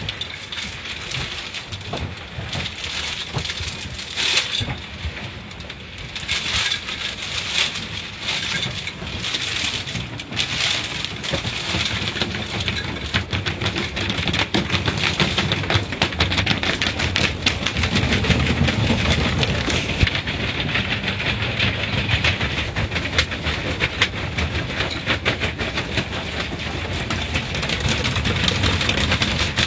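Automatic car wash heard from inside the car: foam and water spray hissing and pattering on the windshield, then wash brushes and water beating on the glass and body. It is a dense, rapid patter, with a deeper rumble building about halfway through.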